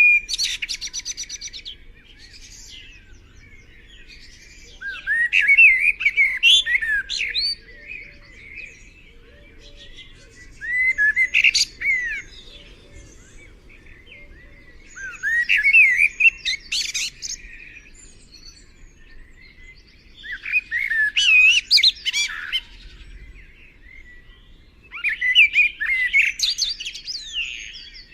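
A kincrong songbird singing: six short phrases of quick, sweeping, up-and-down whistled notes, each about two seconds long, with pauses of about three seconds between them.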